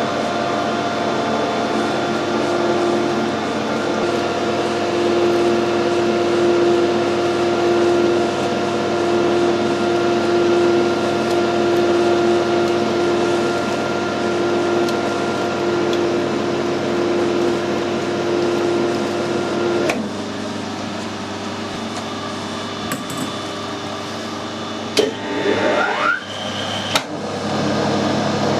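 Metal lathe running steadily while a threading die cuts a thread on a bolt blank, with a steady hum. About twenty seconds in the note drops as the lathe is stopped. A few clunks and a rising whine follow near the end as the motor starts up again.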